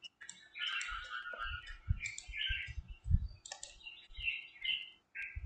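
Computer mouse clicking, mixed with irregular low thumps and short high-pitched chirps.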